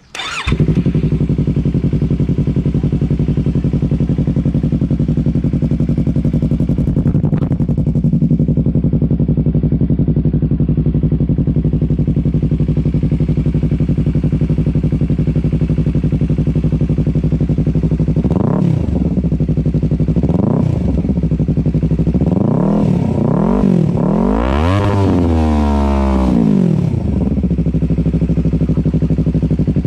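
Yamaha R3's 321 cc parallel-twin engine breathing through an Akrapovic muffler: it fires up and idles steadily, then after about eighteen seconds it is blipped twice and revved several times in quicker succession, the highest rev about twenty-five seconds in, dropping back to idle each time.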